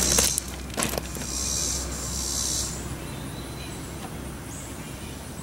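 Insects buzzing: a high, hissy drone that swells for about a second and a half, from about one second in, then fades. Two short clicks sound in the first second.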